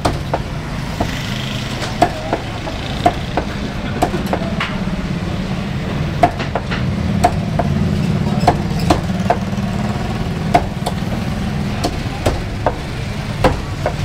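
Meat cleaver chopping chicken on a wooden chopping block: sharp, irregular knocks about once or twice a second. A steady low hum runs underneath.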